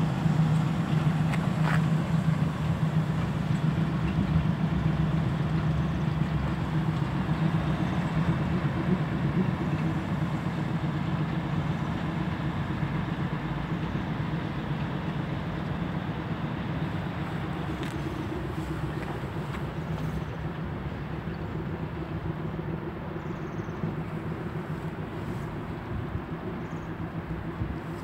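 SM30 shunting diesel locomotive's engine running steadily as it hauls an electric locomotive along the depot track. The hum slowly fades as the pair moves away, with a few faint wheel clicks near the end.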